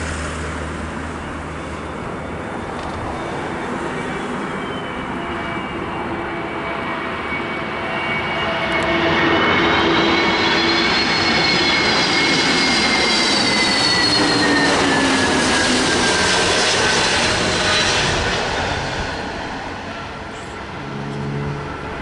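Airbus A321neo jetliner on final approach flying past: a steady jet-engine rumble with a high fan whine that grows louder, is loudest as the plane goes by, then drops in pitch and fades as it moves away.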